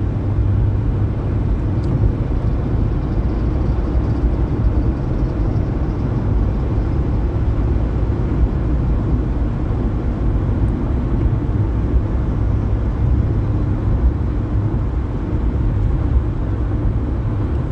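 Steady road and engine noise inside a car's cabin while driving on a highway: an even low rumble with no sudden sounds.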